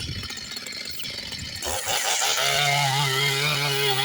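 Large chainsaw engine running, with a rough low rumble at first, then settling into a louder steady drone from about two seconds in, its pitch wavering slightly as it works.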